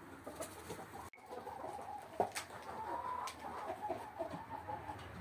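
Chickens clucking, with a sharp knock about two seconds in.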